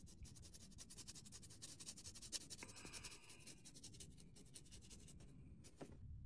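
Faint, fast scratching of a stiff brush working pastel chalk on a 2mm card platform surface, about ten strokes a second, thinning out in the second half, with a single sharper click near the end.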